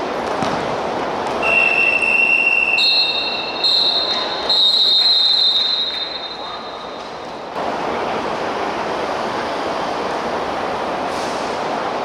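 Referee's whistle blown in a run of long, high blasts, the pitch stepping up after the first, marking full time. Then, from about seven and a half seconds in, a steady wash of hall noise.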